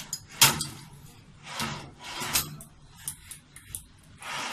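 Steel wire basket of a pull-out kitchen trolley rattling and clinking as it is fitted onto its metal runner channels: a sharp click about half a second in, then several more clattering scrapes.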